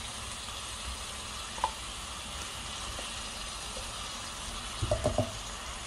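Sweet potato slices, abalone and garlic sizzling steadily in oil in a frying pan on low heat. There is a single light clink about one and a half seconds in and a few soft knocks near the end.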